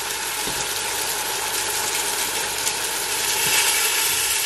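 Tomato-onion masala with freshly added yogurt sizzling steadily in a stainless steel pot on a gas hob, with faint crackling.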